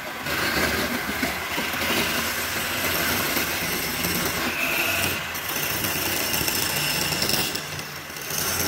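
Wood lathe running with a steady motor hum while a hand-held turning chisel cuts into the spinning wood, a continuous scraping.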